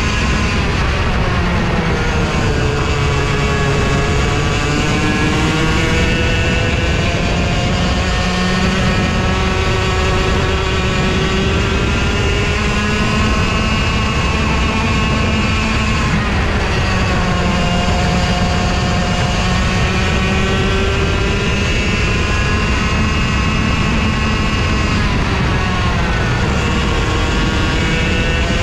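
Racing kart engine heard onboard at racing speed, its pitch dropping as it slows for corners and climbing again as it accelerates out, several times over.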